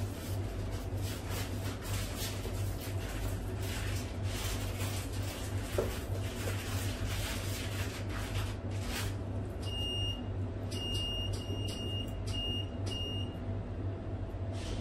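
Boning knife strokes cutting and scraping through beef on a plastic cutting board as a hanger steak is trimmed, over a steady low machine hum. About ten seconds in, a run of about five short, high electronic beeps sounds.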